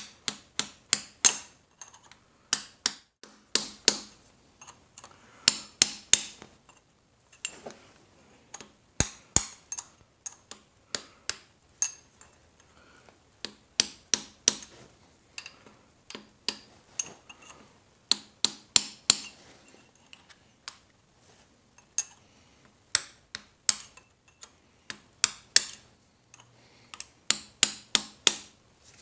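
Quick bursts of sharp hammer taps on steel, a few blows at a time with short pauses, as a hammer drives a 32 mm socket and a chisel to seat a speedy sleeve and front crankshaft seal on an engine's crank nose.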